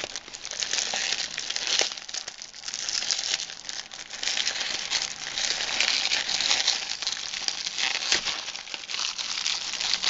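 Plastic wrapper on a package of Peeps marshmallow chicks crinkling and tearing as it is worked open by hand: a continuous run of crackles with small sharp clicks.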